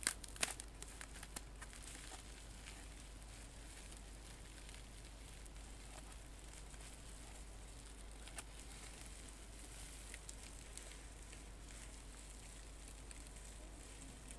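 Bubble wrap being unfolded and handled: faint plastic crinkling and rustling with a few soft crackles and clicks, loudest in the first second or two.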